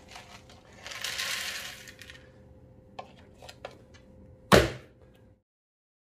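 Dry cereal poured from a cup into a robot vacuum's plastic dustbin, a rattling pour about a second in. It is followed by a few light clicks and one loud plastic knock about four and a half seconds in.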